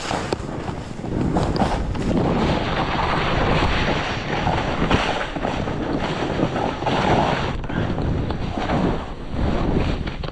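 Snowboard sliding and turning down a snow slope, its base and edges hissing through the snow in swells as it carves, with wind buffeting the microphone.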